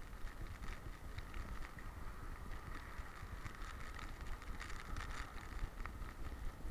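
Wind buffeting the microphone of an action camera worn by a running boxer dog: a steady low rumble with irregular light clicks and rattles from the dog's gear as she runs.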